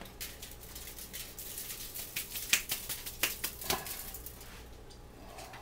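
Aluminium foil crinkling and crackling in quick irregular small clicks as hands spread brown sugar and margarine over it; the crackling dies away about four and a half seconds in.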